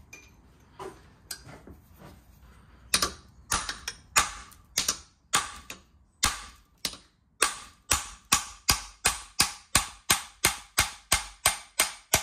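Ball-peen hammer striking a steel drift held against the threaded bearing adjuster ring of an M80 differential housing, tapping the ring round to undo it. The strikes are sharp and metallic: a few scattered at first, then a steady run from about three seconds in that quickens to about three blows a second.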